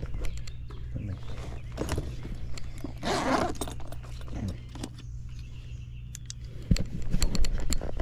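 Handling of a Veto Pro Pac tool bag and tools: a short rasping rustle about three seconds in, scattered clicks, and a run of louder knocks and clicks near the end, over a steady low hum.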